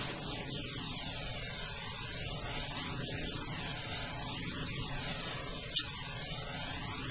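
Steady hum and hiss of background noise, with one sharp, high click a little before the end.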